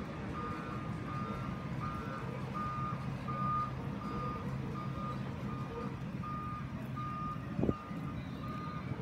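A vehicle's back-up alarm beeping steadily at one pitch, evenly spaced, over the low hum of heavy machinery running. A single sharp knock sounds near the end.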